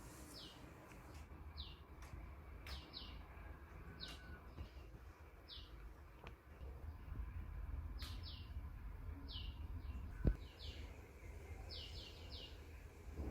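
Small birds chirping over and over, short high downward-sliding chirps, sometimes two or three in quick succession, over a steady low background rumble. A few faint sharp clicks, and one short low thump about ten seconds in that is the loudest sound.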